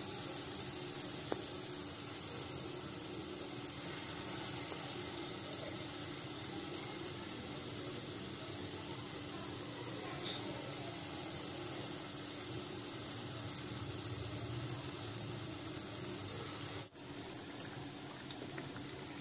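Palm fruit fritters frying in hot oil in a frying pan: a steady, high, even sizzle. It briefly drops out about 17 seconds in, then carries on.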